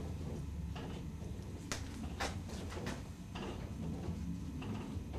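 A few light knocks and clicks of kitchen utensils and containers being handled, irregularly spaced, over a low steady hum.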